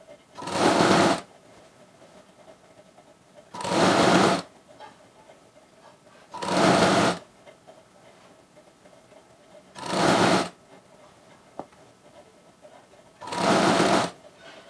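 Domestic sewing machine stitching a fall onto a saree border in five short runs of about a second each, with pauses of two to three seconds between them.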